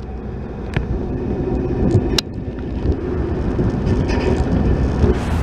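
Wind rumbling on the microphone, with two sharp clicks, one just under a second in and one about two seconds in.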